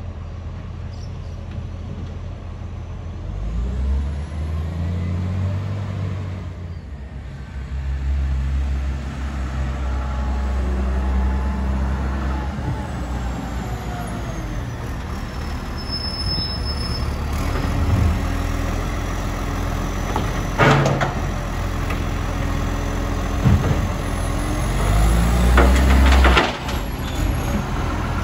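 Dennis side-loading garbage truck driving up and pulling in, its diesel engine rising and falling in pitch as it speeds up and slows. Short sharp hisses, typical of the air brakes, come in the second half, the loudest about two seconds before the end as the engine drops back.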